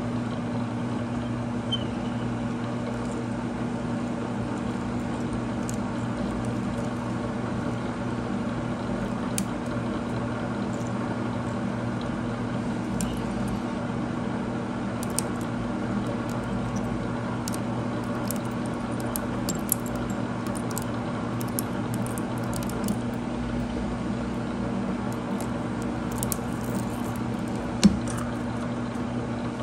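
Milling machine spindle running steadily while a corner-rounding cutter takes a wet cut on the end of a stainless steel rod, with scattered small ticks and one louder click near the end.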